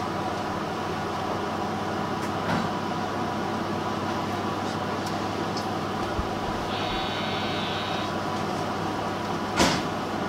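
Steady hum inside a JR Shikoku 2700 series diesel railcar, from its engines and air conditioning, with a few light clicks, a short high buzzing tone about two-thirds through, and a sharp knock near the end.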